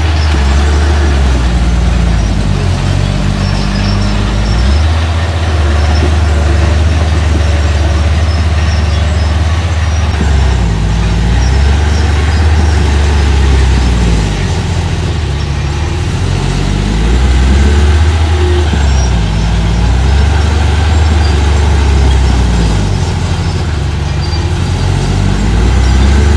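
Engine of small earthmoving machinery running loud, its speed rising and falling again and again as the machine works.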